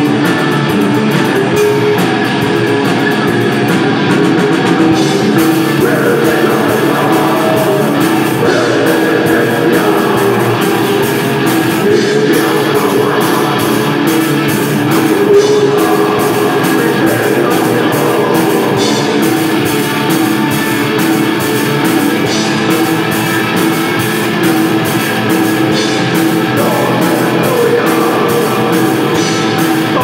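Black metal band playing live at full volume: distorted electric guitars, bass and a drum kit, with the singer's vocals over them.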